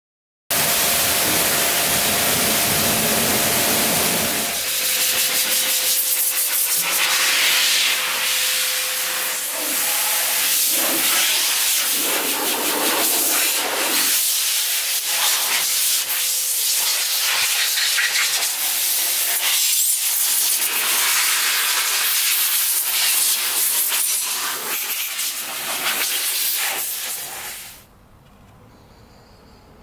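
Pressure-washer jet spraying water onto a car's paintwork, rinsing off foam: a loud, steady hiss that varies as the wand moves and cuts off abruptly near the end.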